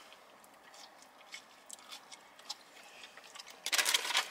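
Chewing and small wet mouth clicks of people eating fried food. A brief louder burst of noise comes near the end.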